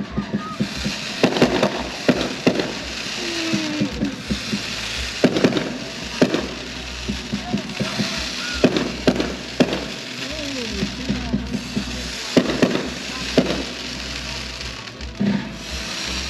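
Fireworks going off: irregular sharp bangs and crackles, sometimes several close together, over a steady background of crowd noise.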